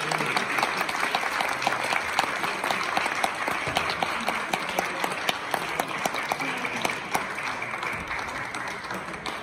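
Audience applauding, with dense hand-clapping that eases off slightly near the end.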